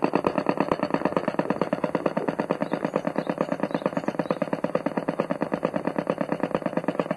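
Electronic engine-sound unit of a 5-inch gauge battery-electric model railbus, playing a simulated diesel engine at idle: a steady, rapid chugging of about eight to nine beats a second.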